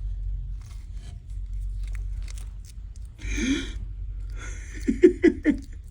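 Bearded dragon biting and crunching mealworms: small, crisp scattered clicks over a low steady rumble. Later there is a brief noisy burst, then a quick run of about five short voice-like sounds near the end, the loudest part.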